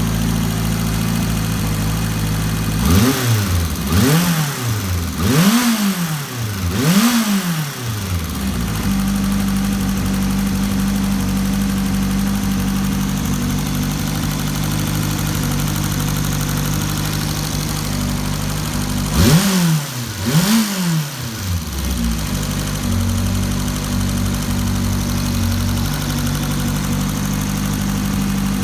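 Kawasaki 750 Turbo's turbocharged inline-four engine idling, blipped four times in quick succession early on and twice more later, each rev rising and falling back to idle. The engine has an abnormal noise that the mechanic thinks is most likely just a tensioner not taking up the slack.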